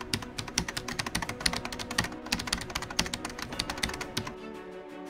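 Computer keyboard typing, a rapid irregular run of key clicks that stops a little over four seconds in. Soft background music with held notes follows.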